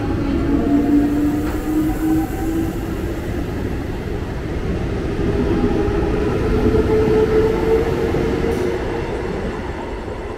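Eastern Railway EMU local train running past close by: a steady rumble of wheels on rail, with a whining tone that rises slowly in pitch. The rumble eases off near the end as the train clears.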